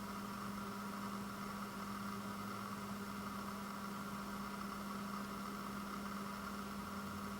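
Steady low hum with an even hiss underneath and no distinct events: background room tone.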